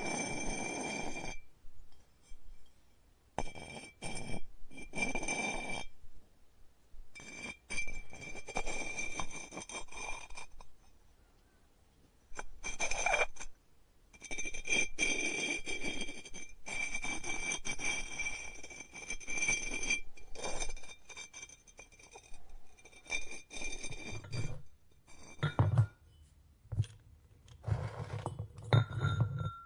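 Pottery work sounds: stop-start scraping and light clinks of tools and ceramic ware, each stretch a second or several long and broken by short quiet gaps, with a steady high whine under the louder stretches. A few low thumps near the end.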